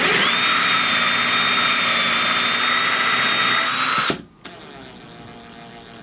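Cordless drill with a step bit (unibit) boring through a black plastic dash panel, running at a steady high whine. It cuts off sharply about four seconds in.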